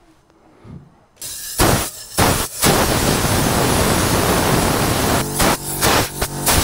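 Compressed-air blow gun blasting air into a car's glovebox and dashboard: a loud hiss starting about a second and a half in, one long blast after a brief break, then several quick on-off bursts near the end.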